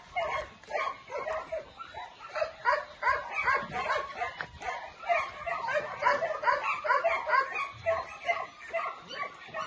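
Several dogs barking and yipping at once, a continuous chorus of short overlapping barks, several a second.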